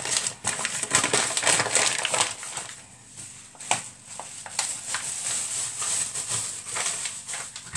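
Flour packet crinkling and rustling as it is handled and flour is tipped out of it, in dense crackly bursts. Louder in the first couple of seconds and again near the end.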